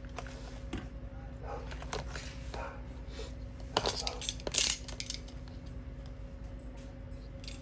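Small metal objects and tools clinking and clattering on a workbench as they are handled: scattered sharp clicks, loudest in a short cluster a little past the middle, over a steady low electrical hum.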